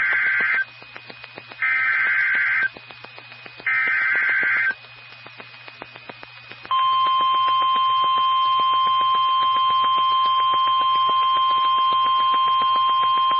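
NOAA Weather Radio Emergency Alert System activation: three one-second bursts of SAME header data, a raspy two-pitch warble, about a second apart. About halfway through, the long steady 1050 Hz warning alarm tone starts and carries on. The sequence signals that a new warning is being broadcast.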